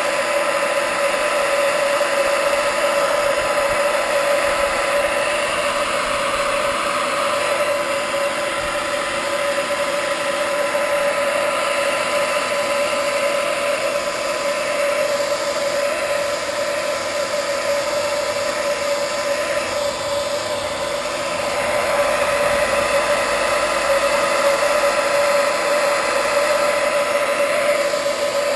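Hand-held hot-air blower running steadily at one constant motor pitch over a rush of air, heating the adhesive of a motorcycle tank pad.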